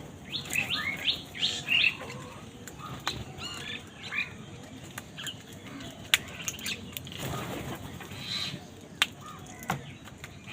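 Crows and other wild birds squabbling over food, with a quick run of short, down-curving calls in the first two seconds, then fewer and sparser calls. A few sharp ticks and a couple of brief flutters of wings come in the second half.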